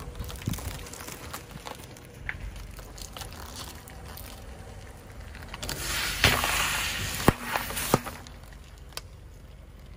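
Car tyre slowly rolling over plastic drink bottles full of liquid: light crackling at first, then about six seconds in the bottles crush and burst with a few sharp cracks and a rush of spraying liquid.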